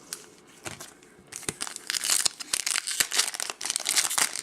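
A trading-card pack's foil wrapper being torn open and crinkled by hand. A few light clicks come first, then dense crackling from about a second in.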